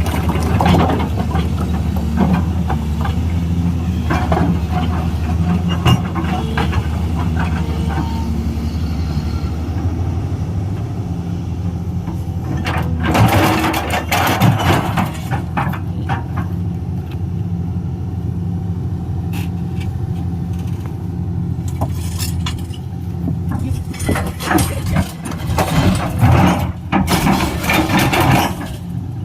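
Excavator's diesel engine running steadily, with louder, rougher noisy stretches about halfway through and again near the end.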